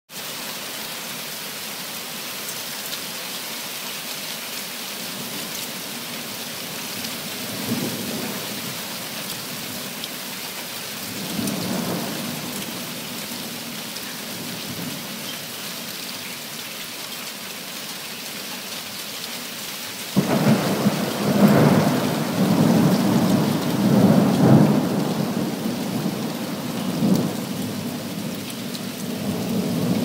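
Heavy rain hissing steadily in a thunderstorm, with brief rolls of thunder near 8 and 12 seconds. About two-thirds of the way in, a sudden loud thunderclap breaks into a long rumble that swells several times.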